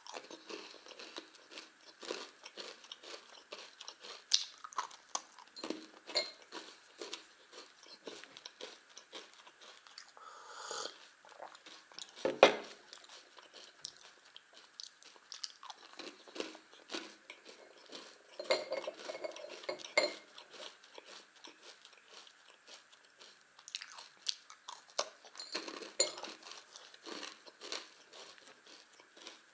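A person chewing and crunching multigrain cereal candy bars, with crisp crunches throughout and one louder crunch about twelve seconds in.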